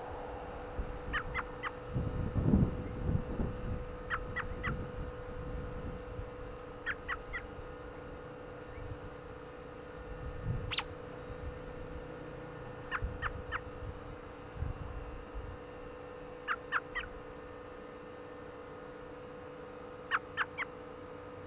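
American robin giving short, sharp chirps in quick groups of three, six groups in all, a few seconds apart. Gusts of wind rumble on the microphone about two to four seconds in.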